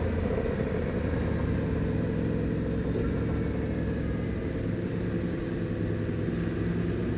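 Yamaha MT-10's crossplane inline-four engine running steadily at a cruising throttle, heard close up from the rider's seat.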